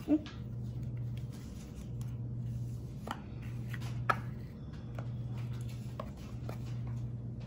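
Cookies being set one by one onto soft custard in a baking dish, with a few faint light clicks. Under them is a low hum that swells and fades every couple of seconds.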